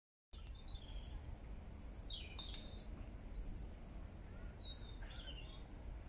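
Wild songbirds singing and calling in a string of short high-pitched phrases, some very high and thin, over a steady low background rumble.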